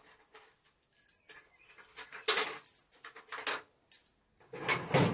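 Small flat steel pieces clinking and clattering together as they are rummaged out by hand: a run of separate sharp metallic clinks, some with a short ringing tail.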